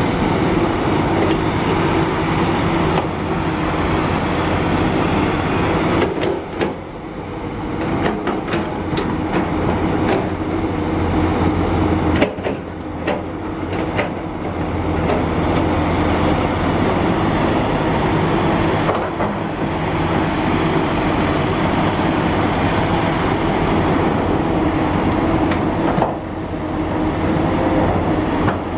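Kobelco SK350 excavator's diesel engine running steadily under load while it digs and loads soil. Several sharp knocks and clanks come in a cluster from about a quarter to halfway through, and one more comes near the end.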